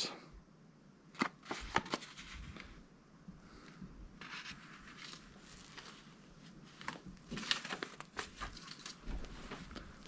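Paper rustling and crinkling in short bursts as old photographs, cards and documents are handled and shuffled on a table, with a few light clicks and taps among them.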